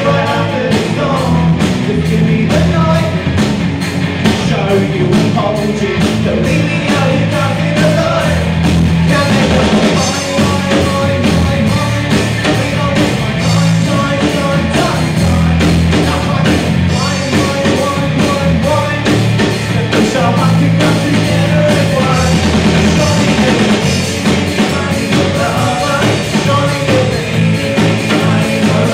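Live rock band playing a song, with a steady drum beat under guitar and bass.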